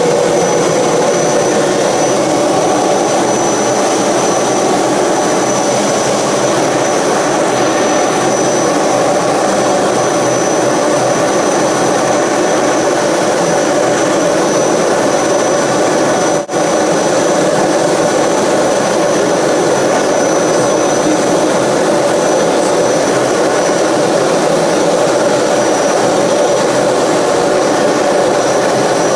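Aero L-29 Delphin's single turbojet engine running steadily, a continuous jet roar with a thin high whine above it, broken once for an instant about halfway through.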